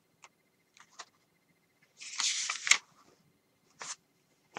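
Magazine in a clear plastic sleeve being handled: a couple of faint taps, then a short crinkling rustle of plastic for under a second about two seconds in, and another brief rustle near the end.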